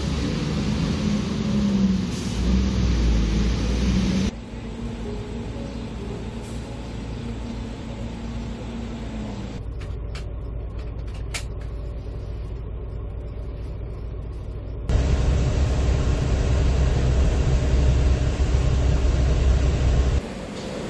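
Vehicle sounds in edited segments. First, street traffic with a low, steady engine hum. Then the muffled interior of a shuttle coach bus with a couple of sharp clicks. About three-quarters of the way through comes a louder, low rumble of the bus's engine and tyres as it drives on a wet highway.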